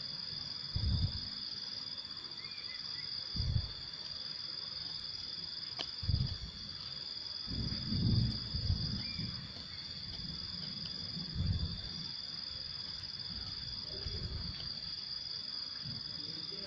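A hoe chopping into loose soil with dull thuds every couple of seconds as earth is dug from the side of a planting bed. Behind it, insects keep up a steady high-pitched buzz.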